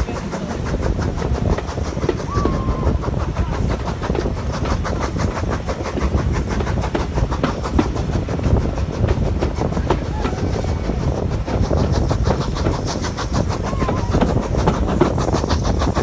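Steam-hauled heritage passenger train running, heard from an open carriage window: a steady rumble with the wheels clicking over rail joints.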